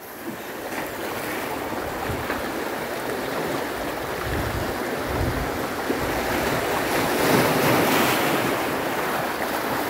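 Surf washing on the shore with wind on the microphone; the wash swells louder about seven seconds in as a wave breaks.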